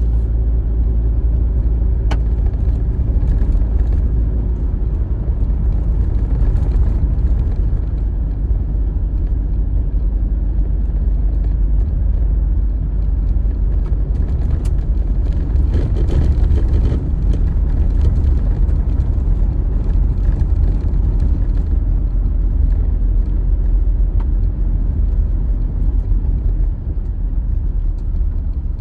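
A vehicle being driven, a steady low rumble of engine and road noise, most likely the Jeep Wrangler on the road trip.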